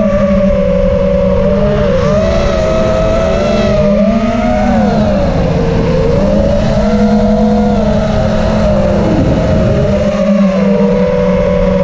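FPV racing quadcopter's brushless motors and propellers whining, picked up by the onboard camera, several tones at once rising and falling in pitch as the throttle changes.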